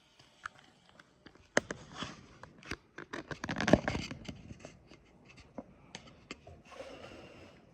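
Hands handling small computer hardware: a run of sharp clicks, taps and short scrapes, busiest about three to four seconds in, with a brief rustle near the end.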